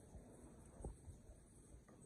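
Near silence: faint room tone, with one soft, low thump a little under a second in.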